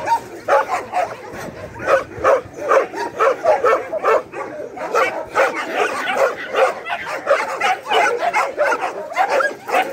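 Dog barking over and over, several short barks a second.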